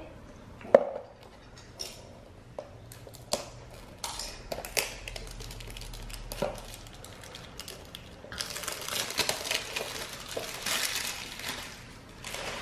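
A small cardboard blind box being handled and opened: scattered light clicks and taps, then, from about eight seconds in, a few seconds of crinkly rustling.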